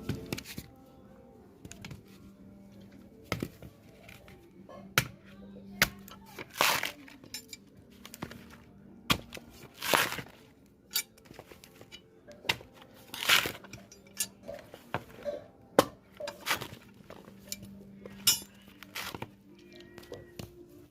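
Blade chopping and slicing into a sprouted coconut: irregular sharp strikes, some drawn out into longer cutting strokes, about one every second or two, over a faint steady hum.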